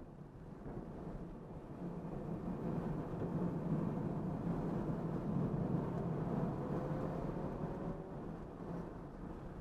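Road, wind and tyre noise inside the cabin of a Tesla Model 3 Dual Motor Long Range driven hard on a track, swelling through the middle as the car brakes and turns through a corner. A faint rising whine comes in about two-thirds of the way through.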